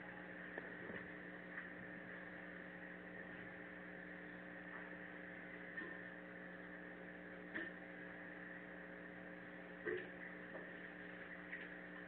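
Steady electrical hum at several fixed pitches over a low hiss, with a few faint short clicks, the plainest one about ten seconds in.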